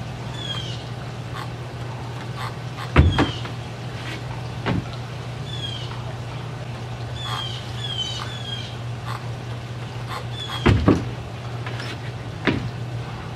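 Heavy thuds and knocks of a body landing on and striking the wooden parkour rig: two loud ones about three seconds in and about eleven seconds in, with smaller knocks after each. Birds chirp repeatedly with short falling notes over a steady low hum.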